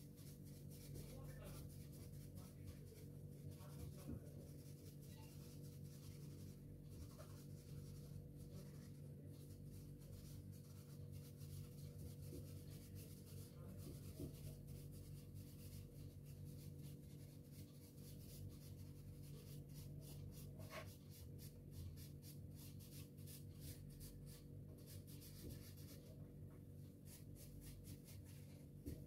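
Soft pastel stick scratching on paper in quick, repeated shading strokes, faint, over a steady low hum.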